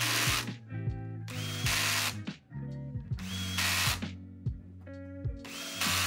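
Cordless drill-driver whirring in short bursts as it drives six-bolt brake-disc rotor bolts into a bicycle wheel hub. Each burst spins up quickly with a rising whine. One burst ends just after the start, and three more follow about every one and a half to two seconds. Music with a low bass line plays underneath.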